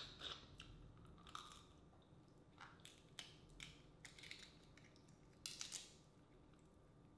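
Cooked crab shell being cracked and picked apart by hand, with a little mouth noise from eating: a scatter of short sharp cracks and clicks, the loudest cluster about five and a half seconds in.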